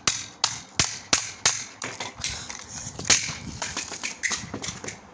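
Cordless phone being struck over and over, a quick run of sharp cracks on its plastic housing, about two to three a second at first, then slower and more irregular.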